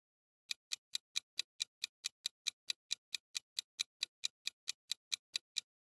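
Clock-style ticking from a quiz countdown timer: sharp, even ticks at about four and a half a second. It starts about half a second in and stops just before the end.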